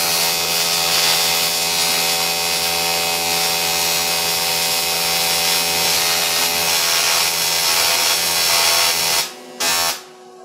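AC TIG welding arc on aluminum: a loud, steady electrical buzz with hiss. It cuts off about nine seconds in, restarts for a moment, then stops.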